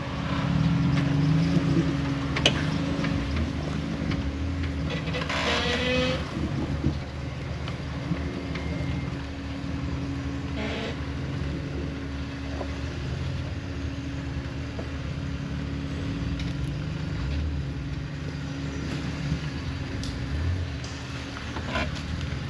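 Off-road vehicle engine running steadily at low revs while the vehicle crawls slowly over an obstacle, with a few small clicks and knocks.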